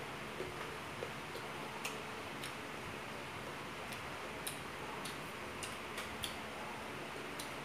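Mouth chewing food up close: scattered soft clicks and smacks at an uneven pace over a steady background hiss.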